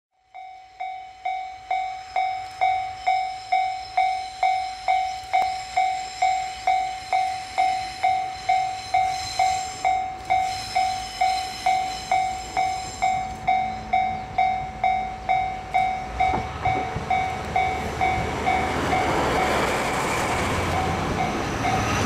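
Level-crossing warning bell dinging about twice a second, fading in at the start. From about 16 s a DE15 diesel locomotive and its passenger coaches pass close by with a growing rumble and wheel noise over the rails, which nearly drowns out the bell.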